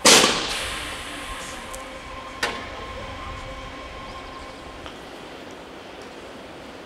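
Railway sounds from an electric locomotive-hauled train. A sudden loud burst at the start fades over about two seconds, then a sharp click comes about two and a half seconds in, over a steady thin whine that stops a little before the end.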